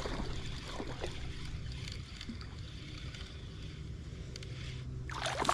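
Wind rumbling on the microphone over a steady noisy hiss of moving water, with a few faint ticks, while a hooked fish is brought in.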